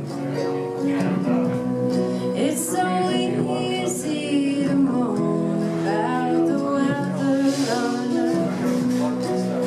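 Live acoustic folk music: acoustic guitar and upright bass with singing.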